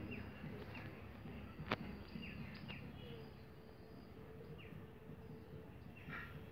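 Faint birds chirping: scattered short, falling calls over a low background hiss, with one sharp click a little under two seconds in.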